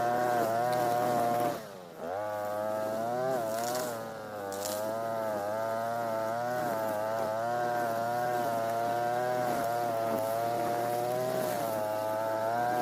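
Europa Hilt brush cutter's TB43 two-stroke engine running at high revs. It drops off the throttle for a moment about one and a half seconds in, and more briefly near four seconds, each time revving straight back up.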